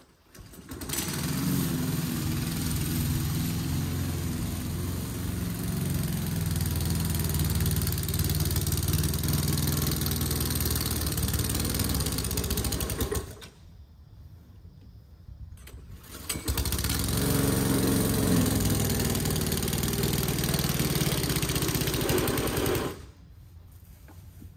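Small petrol lawn mower engine running steadily in two stretches. It comes on about a second in and runs until a little past the middle, stops for a few seconds, then runs again and cuts off near the end.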